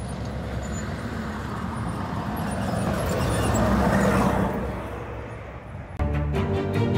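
Eight-wheeled armoured vehicle driving past on a dirt road, its engine and tyres swelling to a peak as it passes close, about four seconds in, then fading. About six seconds in, theme music cuts in abruptly.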